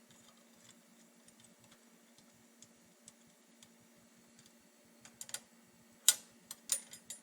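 Small metal clicks and clinks of springer fork nuts and hardware being handled as the nuts are taken off. They are faint and scattered at first, then sharper and louder in a quick cluster over the last two seconds.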